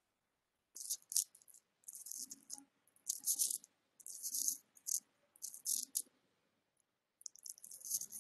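Stylus scratching across a tablet surface in a series of short handwriting strokes: about six brief bursts of scratchy hiss, roughly a second apart.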